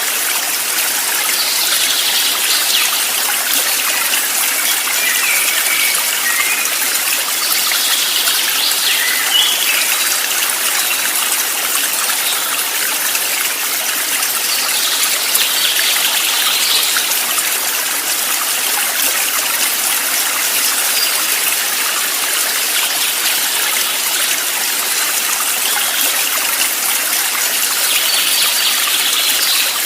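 Steady rushing and trickling of a flowing stream. A few brief, higher-pitched sounds rise over the water at intervals.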